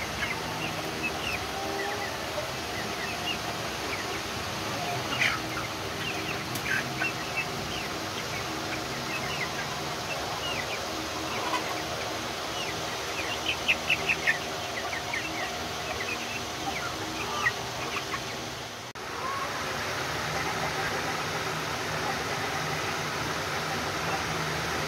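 A flock of young Light Sussex chickens peeping and chirping in short calls, with a quick run of about five louder peeps about halfway through. A steady low hum runs underneath.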